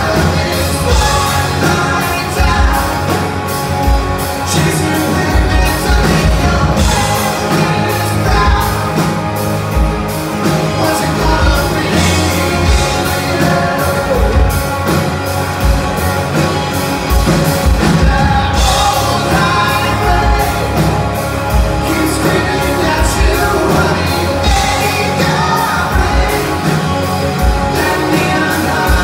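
Live rock band playing with a male lead singer: electric guitars, bass guitar and drums, with a steady drum beat under the vocals.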